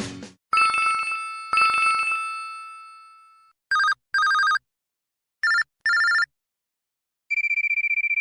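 LG LX290 cell phone playing electronic ringtones through its speaker: two chime strikes about a second apart, each ringing away, then two pairs of short beeps, then a fast warbling trill near the end.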